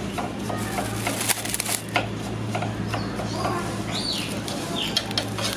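Aluminium foil crinkling and crackling as it is handled and pressed over clay pots, over a steady low hum. A few short falling bird chirps come in the second half.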